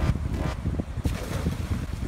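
Wind buffeting the microphone with a low, uneven rumble, while a thrown cast net lands on the water with a light splash near the end.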